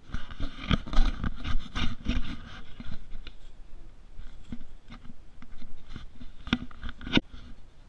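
Irregular knocks, clanks and scraping from hands working on a snowmobile's exhaust pipe and silencer in the open engine bay, with several sharper knocks scattered through.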